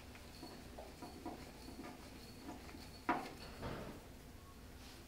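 Handwheel assembly of a Ranger QCT valve actuator being screwed in by hand: faint, irregular small clicks and scrapes of metal parts, with one sharper clack a little past three seconds in.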